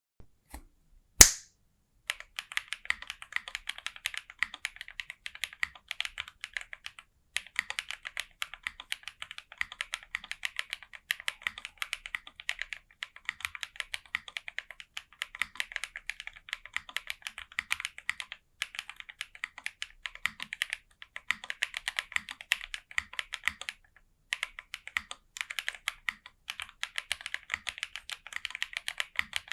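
Typing on a Jris65 mechanical keyboard with lubed SOTC linear switches, an FR4 plate, foam inside and GMK keycaps: a fast, steady run of keystrokes with two brief pauses. A single sharp click about a second in is louder than the typing.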